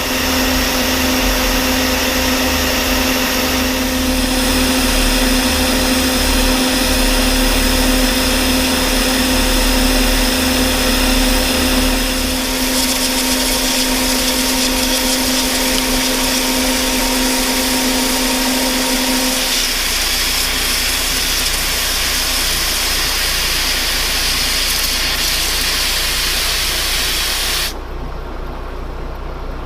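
Metal lathe taking a roughing cut on a steel shaft with a carbide insert, with the steady hiss of a coolant mist sprayer over the machine's running. A steady hum in the noise stops about two-thirds of the way through, and the hiss cuts off suddenly near the end.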